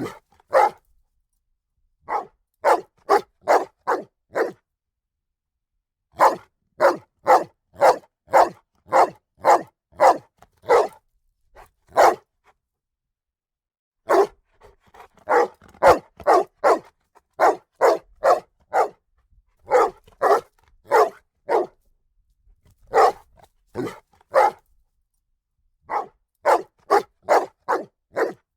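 A dog barking in runs of several barks, about two a second, with short silent pauses between the runs.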